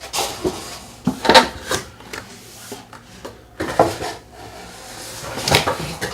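Cardboard packaging being handled and pulled apart during an unboxing, with several scraping, knocking bursts, the loudest about a second in.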